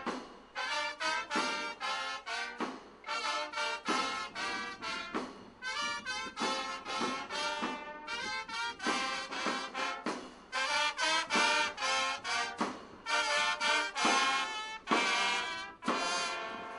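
Brass band playing a tune of separate held notes in short phrases, with trumpets and trombones to the fore, fading near the end.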